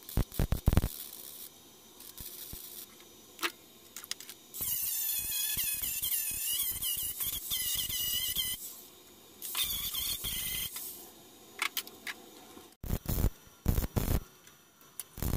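MIG welder crackling in short tack-weld bursts on thin rusted sheet steel of a wheel-arch patch. Then a cordless angle grinder grinds down the welds for about four seconds, its whine wavering in pitch under load, followed by a second, shorter grind; near the end, more short MIG tacks crackle.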